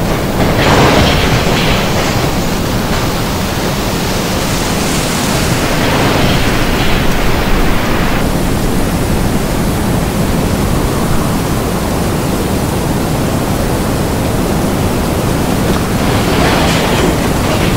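Tornado winds blowing in a loud, steady rush, with gusts swelling about a second in, again from about five to eight seconds, and near the end.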